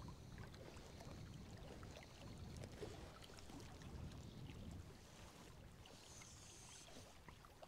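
Faint lapping of small waves against the shoreline rocks of a loch, over a low rumble of breeze on the microphone.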